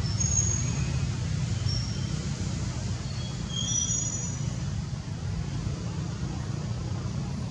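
Steady low outdoor rumble with several short, high chirps scattered through the first half.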